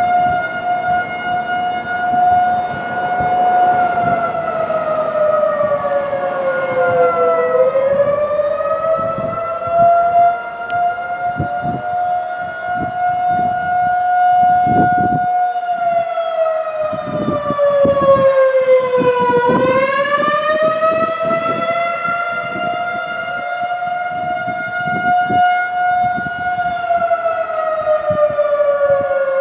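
Federal Signal 2001-SRN rotating electromechanical warning siren wailing: a loud single tone holds at a steady high pitch, then twice slides down and climbs back up, with a third fall starting near the end.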